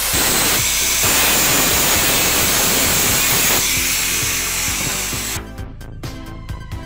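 Angle grinder with a thin cut-off disc cutting through a steel rod, a loud steady grinding hiss that stops about five seconds in. Background music plays throughout.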